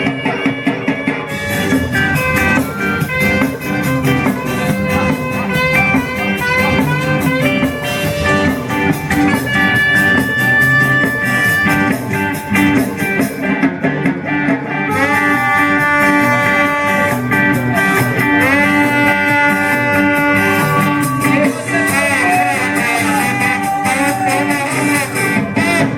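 Ska band music: guitar and rhythm section driving steadily under held melodic lines, with horns.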